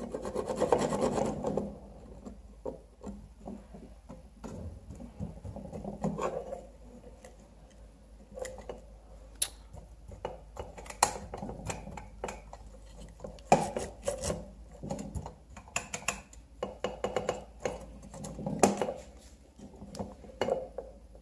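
Hands handling a rusty metal lantern and wires: irregular rubbing and scraping with scattered clicks and a few sharper knocks as the metal parts are moved and touched together.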